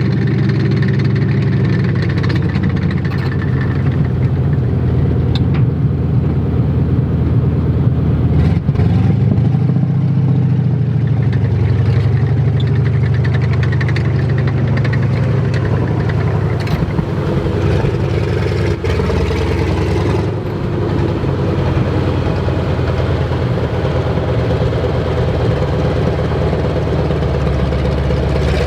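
Heavy vehicle engines running steadily, swelling for a moment about ten seconds in, with a few sharp knocks.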